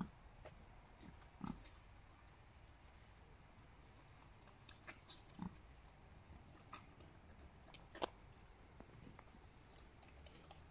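Pigs grunting softly a few times, with scattered rustling and clicks as they move about.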